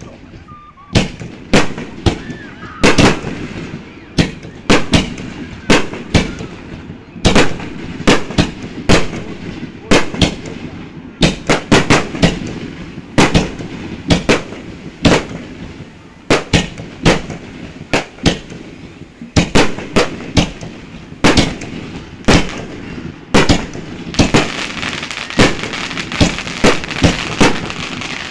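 Aerial fireworks shells bursting overhead: a long, irregular run of sharp bangs, at times several a second, each trailing off in echo. In the last few seconds the bangs come closer together over a denser hiss.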